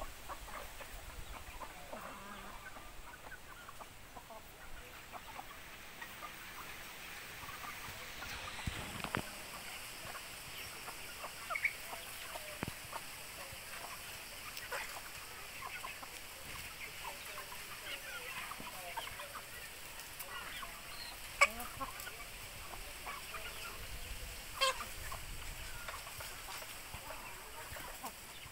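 A flock of young chickens clucking and giving short calls on and off while they peck at food. A few sharp clicks come through; the loudest is about three-quarters of the way in.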